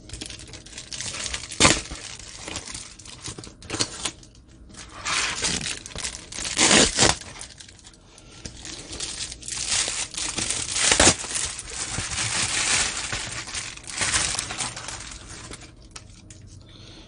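Plastic bubble mailer being torn open along its perforation and handled, crinkling and rustling, with several sharp rips.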